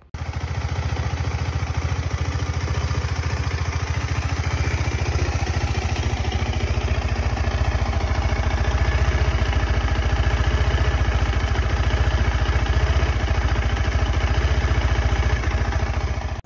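KTM 390 Adventure's single-cylinder engine idling steadily, with an even, rapid low pulse. It starts and stops abruptly.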